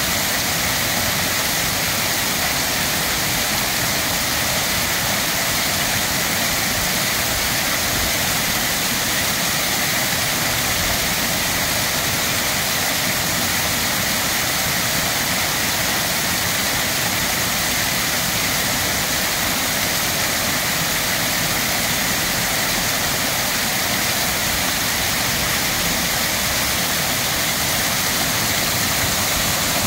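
Water spilling in thin sheets down a stone-block waterfall fountain into its basin: a steady, even rush.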